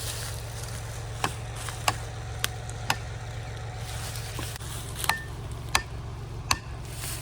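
A hammer striking a felling wedge driven into a tree cut: sharp knocks, four about half a second apart, then three more a couple of seconds later. Under it, a steady low engine hum.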